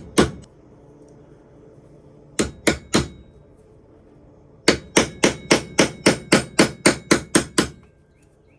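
Small hammer tapping a punch to drive a handle pin out of a Camillus Cub Scout pocket knife, sharp metal-on-metal strikes. There is a single tap, then three, then a steady run of about a dozen at roughly four a second.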